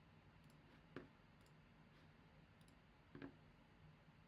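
Two faint computer mouse clicks, about a second in and again near the end, over near-silent room tone.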